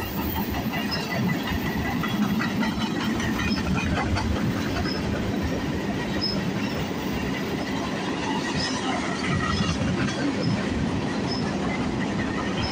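Freight train's tank cars and covered hoppers rolling past: a steady rumble of wheels on rails with a dense clickety-clack of wheels over the rail joints.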